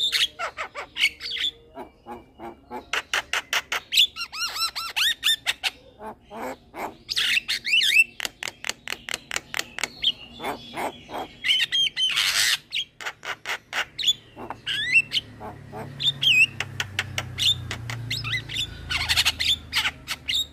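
Young male Javan myna singing: fast runs of harsh clicking chatter and squawks mixed with short whistles that slide up and down in pitch, going on almost without pause.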